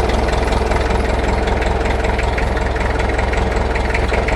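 A machine running steadily: an even mechanical drone with a constant hum and a fast, fine rattle, unchanged throughout.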